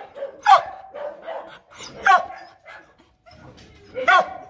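A female H'Mông bobtail dog (chó Mông Cộc) barking, three loud barks about one and a half to two seconds apart, each dropping in pitch, with softer sounds between. It is demand barking for attention, not a threat to bite.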